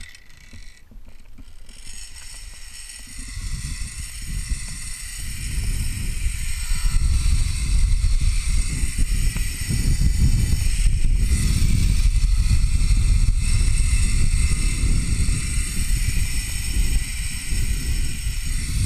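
Zip-line trolley pulleys running along a steel cable with a steady high whir, while wind rushes over the microphone. The wind builds over the first several seconds as the rider picks up speed down the line.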